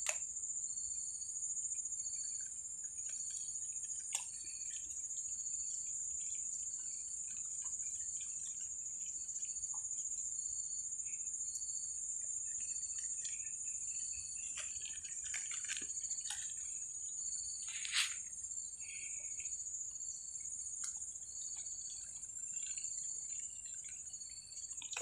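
Steady, high-pitched drone of insects such as crickets, with a short chirp repeating evenly about every three-quarters of a second and scattered faint chirps over it. A few sharp clicks break in, the loudest about 18 seconds in.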